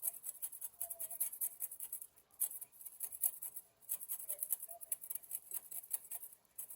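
Lemon being zested on a grater: quick, repeated rasping strokes of the peel across the blades, with brief pauses about two and four seconds in.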